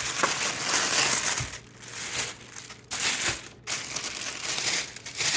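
Packaging inside a shoe box crinkling and rustling as it is pulled back by hand to uncover the shoes, in about four bursts with short pauses between them.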